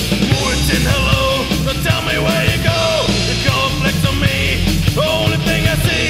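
Thrash/heavy metal band recording playing at full tilt: dense distorted guitars and drums with a heavy low end, and a melodic line bending in pitch over them from about a second in.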